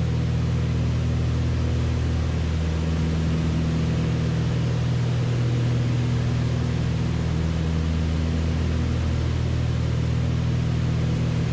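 Twin piston engines and propellers of a Beechcraft Baron B55 in flight, heard inside the cabin as a steady drone with a low hum under a wash of noise.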